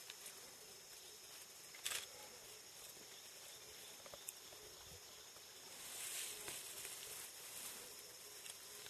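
Faint rainforest ambience: a steady high insect hiss with faint high drones. There is a brief sharp rustle about two seconds in, and a swell of louder hiss around six seconds.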